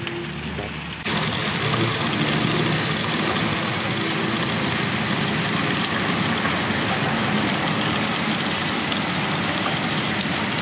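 Glazed chicken wings sizzling on an electric grill: a steady hiss with a few faint crackles, which cuts in abruptly about a second in after a quieter stretch.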